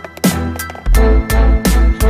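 Background music with a steady beat, heavy bass pulses and sustained chords.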